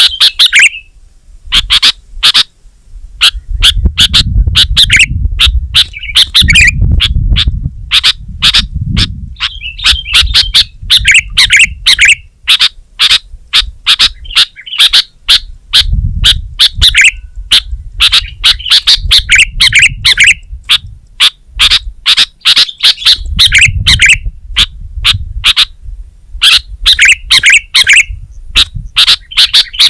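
Sooty-headed bulbul singing: rapid sharp chirps and short warbling phrases, repeated continuously, with bouts of low rumble underneath.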